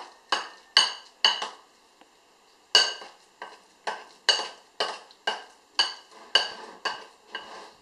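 Metal spoon knocking and scraping round an enamel bowl while mixing mashed potato with a beaten-in egg. The strokes come about twice a second with a short pause about a second in, and each leaves the bowl ringing briefly.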